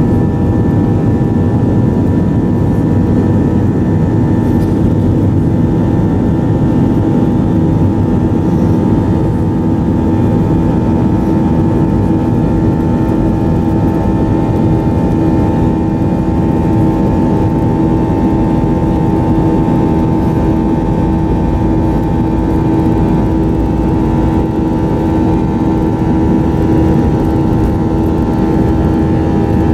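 Airliner engines running steadily as the plane taxis, heard from inside the passenger cabin: a constant rumble with several steady humming tones on top, holding the same pitch and level throughout.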